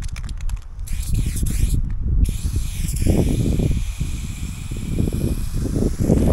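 Aerosol spray paint can spraying: a few short spurts, then one continuous spray from about two seconds in. Under it, a low rumble from wind on the microphone.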